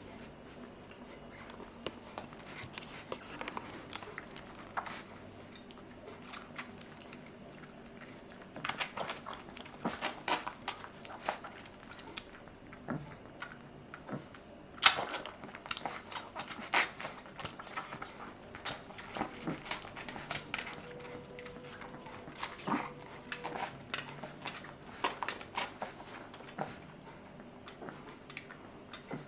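A black puppy suckling milk from a baby bottle's rubber nipple: irregular wet clicks and smacks of its mouth working the teat, coming in clusters with short lulls between.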